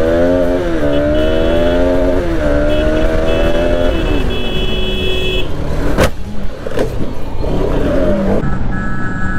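Vehicle engine running on the road, its pitch rising, holding, then dropping a couple of times as revs change, over steady road noise; a sharp knock about six seconds in.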